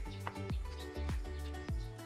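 Background music with a steady beat: a deep kick drum a little under twice a second under sustained chords.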